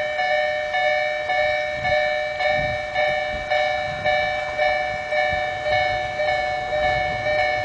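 Japanese railway level crossing warning bell ringing its repeated clanging tone, about two strokes a second, signalling that a train is approaching.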